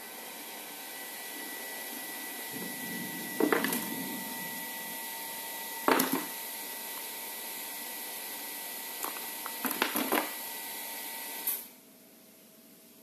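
A small cardboard box being handled and opened by hand, with sharp knocks and taps about three and a half seconds in, at six seconds and in a cluster around ten seconds as the box is turned and its inner tray comes out. Under it a steady hiss with a faint high whine stops abruptly near the end.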